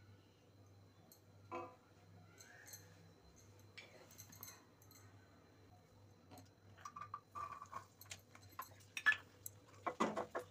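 Mostly quiet for the first several seconds, with a few faint clicks. From about seven seconds in, clinks and a thickening run of crackles follow as garlic cloves go into hot oil in a steel kadai and a wooden spatula stirs them against the pan, loudest near the end.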